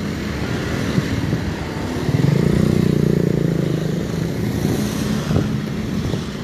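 Motorcycle engines and road traffic going past, with one motorcycle engine getting louder about two seconds in for a couple of seconds as it passes close by.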